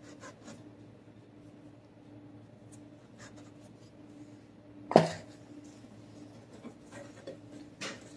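Flour sifter's bottom rim cutting circles from rolled pie dough on the work surface: soft scraping, a sharp knock about five seconds in and a smaller one near the end, over a faint steady hum.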